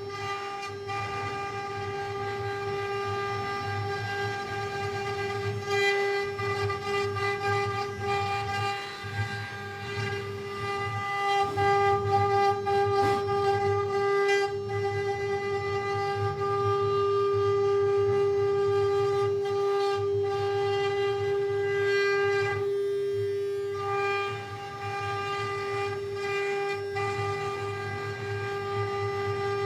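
CNC wood-carving router running, its spindle giving a steady, unchanging high whine over a low, pulsing rumble from the machine working the wood.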